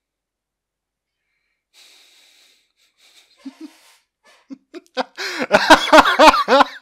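A man laughing. It starts as faint breathy wheezing and builds, about five seconds in, into loud, rapid bursts of wheezy laughter.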